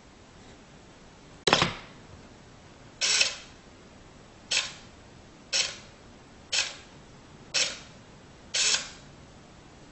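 Wooden useless box (toggle-switch box) working by itself: a sharp click, then six shorter clacks about a second apart as its lid and arm mechanism move.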